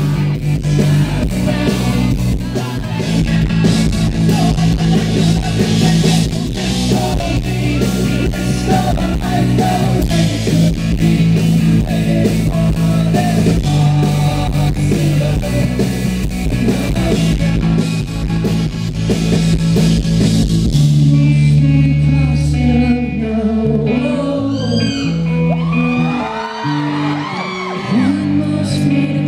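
Live rock band playing loud, with singing. The drumming stops about 21 seconds in, leaving held chords and sung, gliding voice lines.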